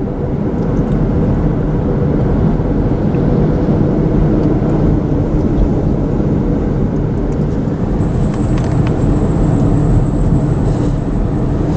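Steady road and engine noise inside a moving car. A faint, steady high-pitched tone joins about eight seconds in.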